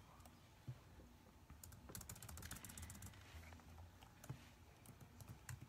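Faint typing on a keyboard: a quick run of keystrokes about two seconds in, then a few scattered clicks, over a low room hum.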